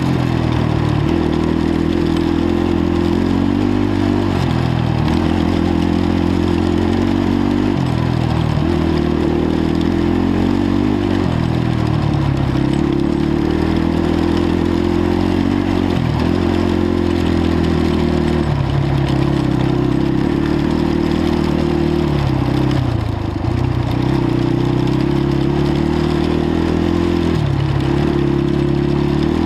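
Polaris Predator 500 quad's single-cylinder four-stroke engine running under way. Its pitch climbs and drops again and again with the throttle and gear changes, over a steady rushing noise of wind and tyres.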